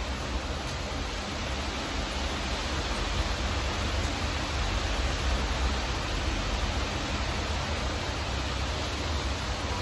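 Steady heavy rain falling, an even hiss with a low rumble underneath.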